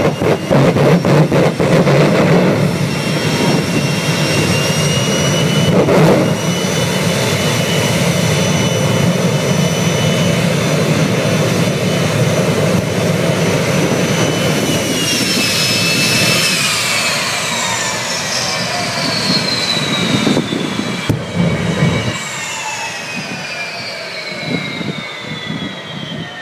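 Jet dragster's jet engine running with the afterburner lit: a loud rumbling roar at first, then a steady high whine that falls steadily in pitch through the second half as the low rumble fades.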